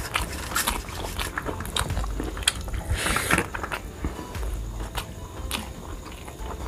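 Eating rice and cabbage curry by hand from a steel plate: fingers mix and scoop the food against the metal plate, giving scattered sharp clicks and taps and a brief scraping rush about three seconds in, along with chewing.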